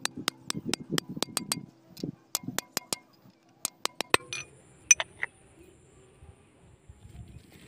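Hammer blows on a steel drift bar driving a bearing onto the rotary shaft of a VST Shakti power tiller: sharp metallic taps, quick and even for the first second and a half, then a few scattered taps over the next few seconds.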